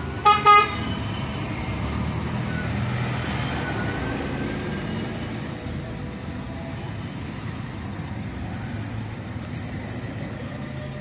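Two short, loud beeps a quarter-second apart at the very start, then a steady low rumble.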